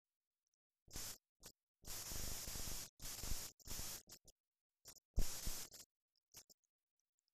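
Bursts of static hiss and crackle cutting in and out, with dead silence between them and a low thump about five seconds in.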